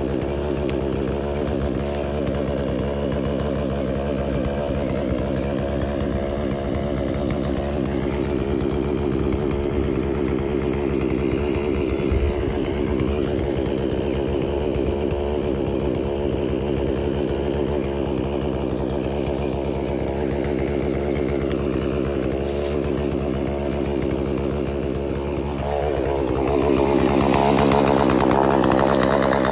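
Chainsaw engine running steadily, then revved up higher and louder near the end.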